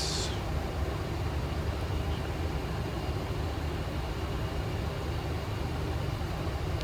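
Steady flight deck noise of a Boeing 737 in descent: an even, low rumble of airflow and engines with no change in level.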